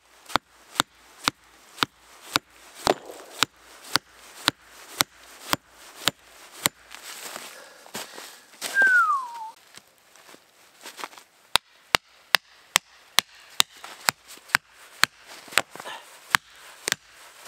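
An axe striking wood in sharp, evenly spaced blows about two a second, stopping for a few seconds in the middle and then starting again a little faster. In the pause there is a louder rustle and a short falling whistle-like note.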